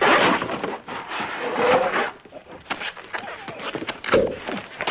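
Scuffling and rustling of a man twisting about in a clear plastic cone collar, loudest at the start. Two short grunt-like voice sounds come, one about a second and a half in and one near the end.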